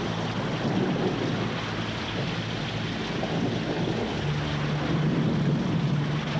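Heavy storm rain and wind, a loud, steady hiss, with low held tones underneath that shift about four seconds in.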